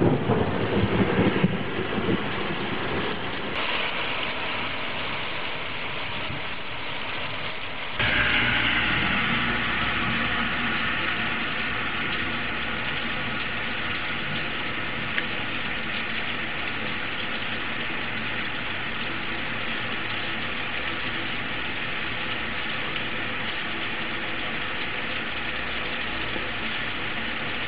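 Heavy thunderstorm rain pouring down in a steady rush. About eight seconds in it turns suddenly louder and deeper, then slowly eases again.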